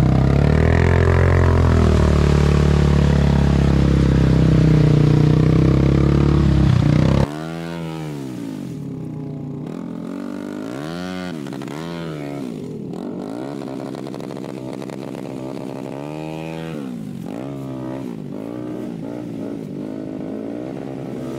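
ATV engines: for about the first seven seconds a loud engine runs steadily. It then cuts off suddenly, and a four-wheeler stuck deep in a mud hole is revved up and down over and over as it is worked to get free.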